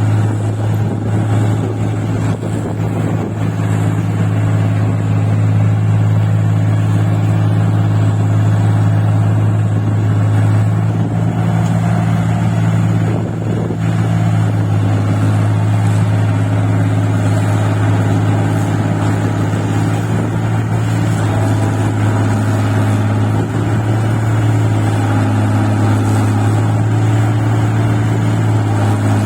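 Engine of a rice-paddy machine running steadily while it works in deep paddy soil, with a brief dip in level about halfway through.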